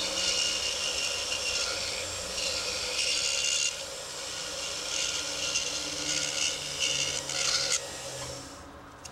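A tool rasping and scraping on acrylic, in bursts of one to three seconds with short pauses, dying away near the end.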